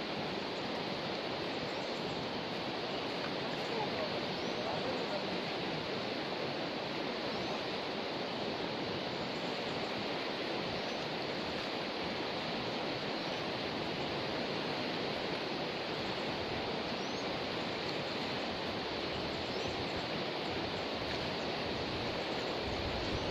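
A river swollen after a flood, rushing past in a steady, unbroken wash of water noise.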